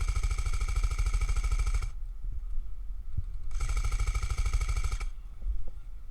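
An airsoft gun firing two long full-auto bursts, a rapid rattle of shots over a steady motor whine: the first runs a little under two seconds, and after a short pause the second lasts about a second and a half.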